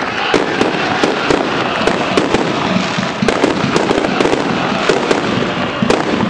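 Fireworks going off: many sharp bangs and crackles in quick, irregular succession over a continuous crackling noise.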